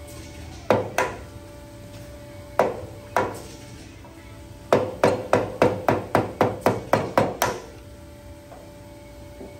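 Hammer striking a screwdriver set on the edge of a GM transfer case's rear output seal, collapsing the seal to get it out. There are four separate strikes, then a quick run of about a dozen taps at roughly four a second.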